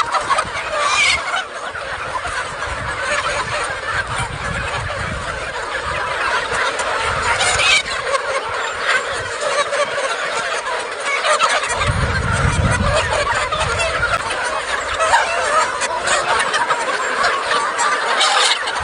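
A large flock of free-range chickens clucking and calling all at once, a dense, continuous chatter of many overlapping birds.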